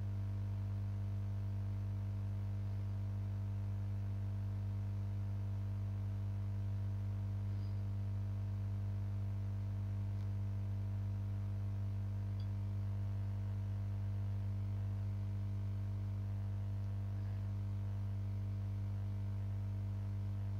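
Steady low electrical hum with fainter overtones above it, unchanging throughout: mains hum picked up by the recording's microphone chain.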